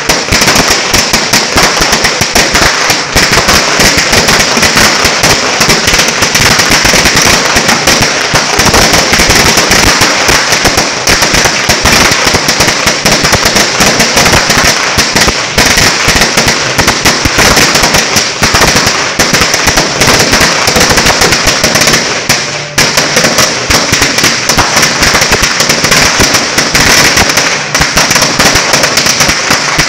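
A 1000-round 5 Star sawa, a long belt of linked firecrackers, going off in a continuous rapid chain of sharp bangs, with a brief lull about two-thirds of the way through.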